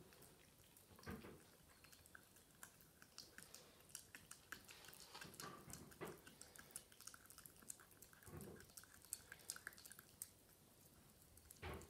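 Faint, irregular wet clicks of a toy poodle puppy chewing and gnawing a raw chicken wing, with a few soft low thumps.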